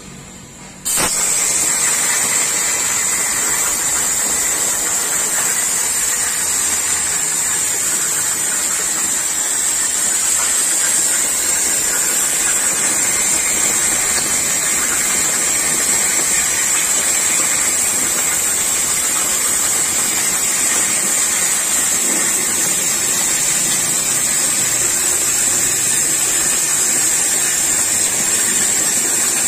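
Oxy-fuel cutting torch on a CNC flame-cutting machine: its gas jet comes on sharply about a second in and then hisses loudly and steadily as it cuts steel plate.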